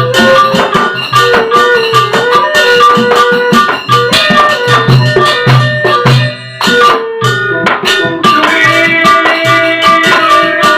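Sasak wayang gamelan ensemble playing a gending: regular low drum strokes under sustained interlocking melodic lines, with a brief break about six and a half seconds in before a higher melody enters.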